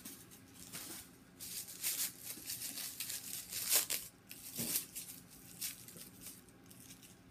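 Crinkling and rustling of white stuffing wrap pulled out of a new handbag, then of the wrapper around its small key keeper being unwrapped by hand; irregular crackles, a few of them sharp.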